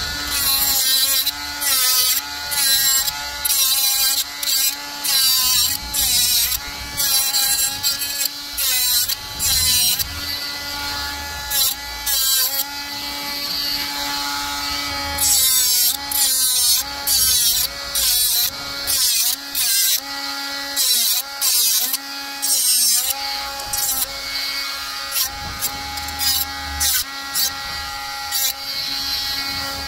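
Small cordless angle grinder switched on and off in short bursts against a plastic car grille, its motor whine rising at each start and dropping away at each release, with a hiss from the disc working the plastic.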